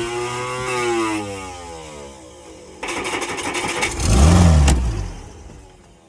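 Vintage Baja boat's carbureted inboard engine revving, then slowing and dying away. About three seconds in it is cranked again, catches briefly with one loud rev, and dies out: it will not keep running, and too much throttle is blamed.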